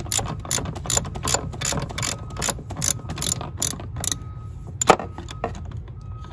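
Ratchet wrench with a 15/16 socket clicking in quick back-and-forth strokes, about three or four clicks a second, as it spins off a brake master cylinder mounting nut that has already been broken loose. The clicking stops about four seconds in, with one sharper click about a second later.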